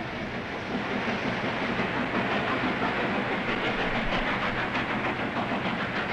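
Passenger train running along the rails: a steady rushing clatter of the cars on the track.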